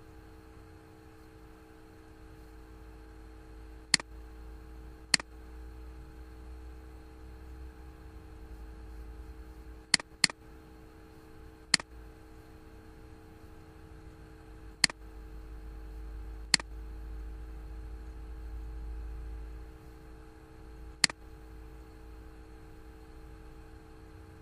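Computer mouse clicking: eight short, isolated clicks spread out, two in quick succession about ten seconds in, over a steady low electrical hum.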